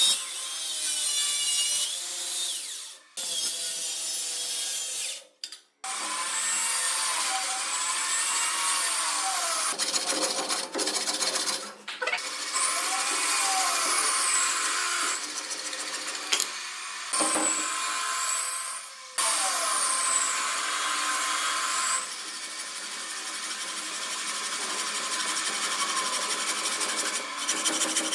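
A wooden handrail block being cut with a hand frame saw: a continuous rasping of the blade drawn back and forth through the wood, broken off abruptly a few times.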